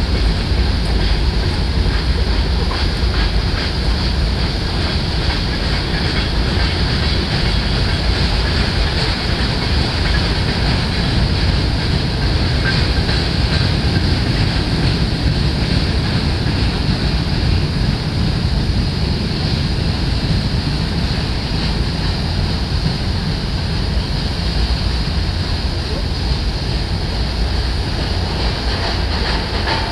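A long freight train of boxcars and autoracks rolling past, giving a steady, even rumble of wheels and cars on the rails.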